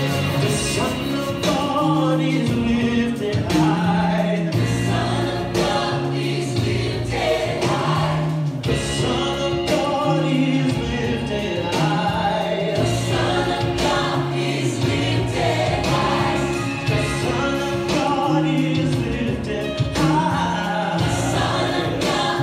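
Gospel music: a choir singing over a bass line of held low notes that changes every second or two.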